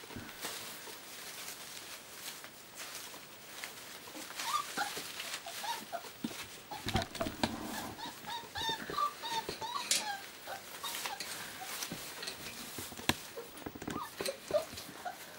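Young puppies whimpering and squeaking in short, high calls, with a busy run of them through the middle, over the rustle of shredded-newspaper bedding and small knocks.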